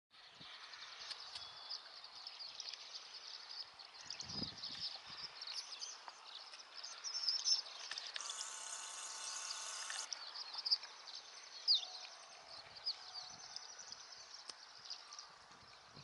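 A large flock of small birds calling in flight, a dense, continuous chatter of many short high chirps and squeaks. Midway a steady buzzy sound lasts about two seconds.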